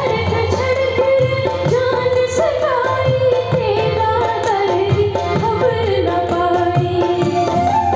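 A woman singing a slow folk melody with long gliding notes into a microphone, accompanied by tabla and a hand drum.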